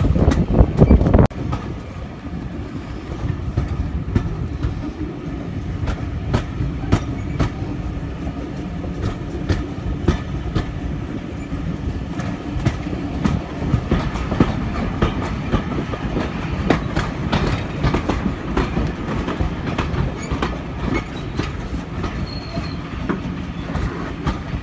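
Railway train running on the line: a steady rumble with many sharp clicks from wheels passing over rail joints and a faint wheel squeal. A louder burst of noise in the first second or so drops away suddenly.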